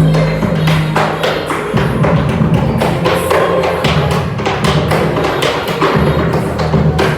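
Tap shoes striking the floor in quick runs of sharp clicks, over backing music with a bass line.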